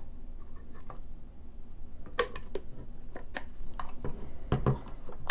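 Light clicks and knocks of hard plastic parts being handled as a butt plate is fitted onto a fixed polymer rifle buttstock, scattered from about two seconds in, with two duller thumps near the end.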